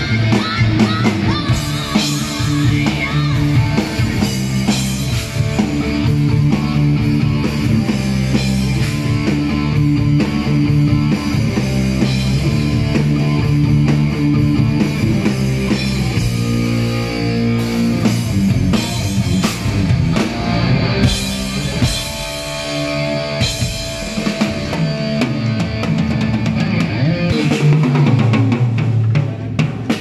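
Metal band playing live at a sound check: a drum kit with electric guitars playing riffs, continuous throughout.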